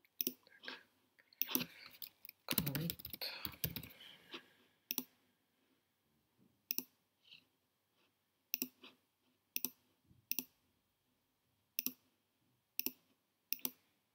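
Single sharp computer mouse clicks, about one a second, with a quick run of keyboard typing about two to four seconds in.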